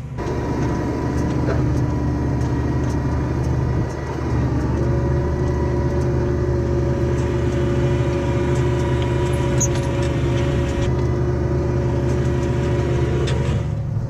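New Holland tractor's diesel engine running steadily under load while pulling a mounted reversible plough through the soil. A steady whine comes in just after a brief dip about four and a half seconds in, and stops shortly before the end.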